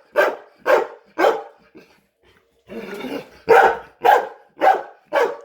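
Chocolate Labrador retriever barking repeatedly to demand food: three barks about half a second apart, a pause, then four more.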